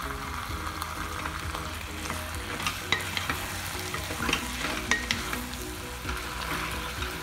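Wooden spatula stirring raw bone-in chicken pieces through a sizzling onion and tomato base in a pot. The frying hiss is steady, with a few sharp scrapes and knocks of the spatula against the pot in the middle.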